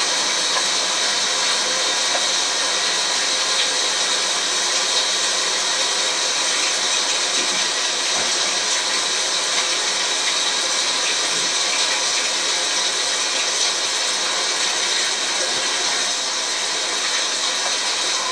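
Heavy rain falling steadily, a constant even hiss with no breaks.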